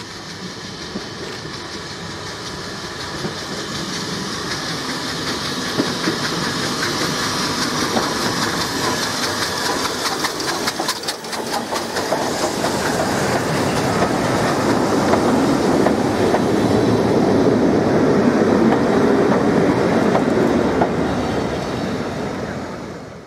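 BR Standard Class 4MT 4-6-0 steam locomotive and its train of coaches approaching and running past, the sound growing louder as it nears, with wheels clattering over the rail joints as the engine and coaches go by.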